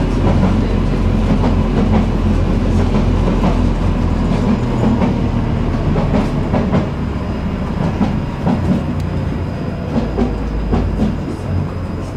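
Tram running along street track, heard from inside the car: a steady low rumble of wheels on rails with irregular clicks and knocks, easing somewhat in the second half.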